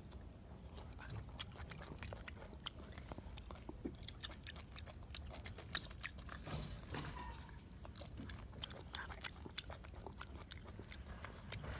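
Golden monkey biting and chewing food close up: a steady run of irregular small crunchy clicks and smacks, busier about halfway through.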